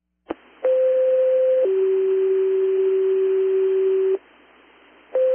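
Fire dispatch two-tone page heard over a scanner radio: a click as the radio keys up, then a steady higher tone held about a second that drops to a lower tone held about two and a half seconds, over radio hiss. The tone pair starts again near the end.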